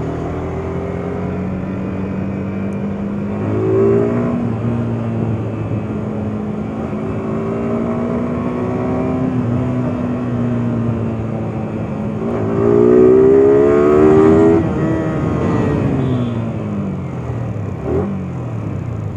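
Yamaha R15 motorcycle's single-cylinder engine under way, its pitch rising and falling as the rider speeds up and eases off, with a strong surge of acceleration a little past the middle. Road and wind noise runs underneath.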